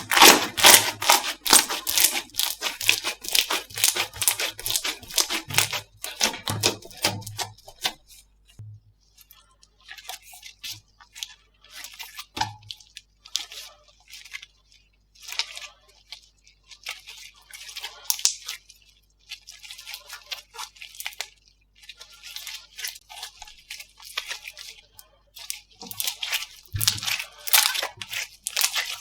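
Slime being squeezed, pressed and poked by hand, in bursts of crackling, popping clicks with short pauses between.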